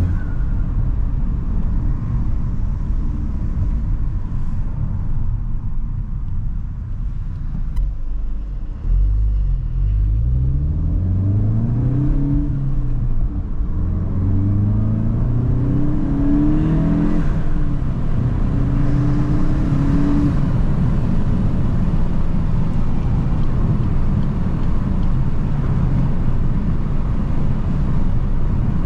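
Volkswagen Golf Mk8 GTI's turbocharged 2.0-litre four-cylinder pulling hard through the gears, its note climbing and dropping back at each upshift several times starting about nine seconds in, then settling into a steady drone of engine and road noise.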